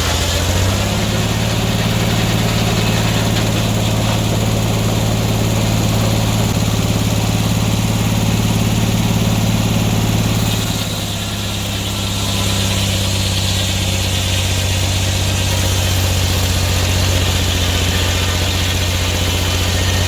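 Engine running steadily. Its pitch steps up about a second in and drops back, with a brief dip in loudness, about eleven seconds in.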